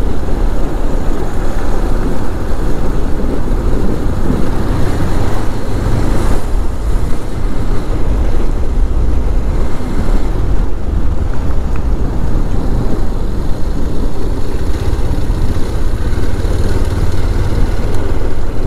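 Motorcycle engine running steadily at cruising speed, with wind rushing over the rider's camera microphone.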